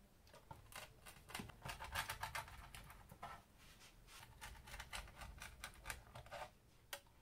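Pizza wheel cutter rolling through a thin baked pizza crust onto a wooden board: a faint run of crackling clicks in several bursts with short pauses between the cuts.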